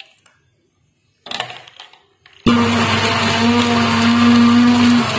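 A couple of brief knocks, then an electric countertop blender switches on suddenly about halfway through and runs steadily at full speed with a strong humming whine, blending ice into milk and coffee.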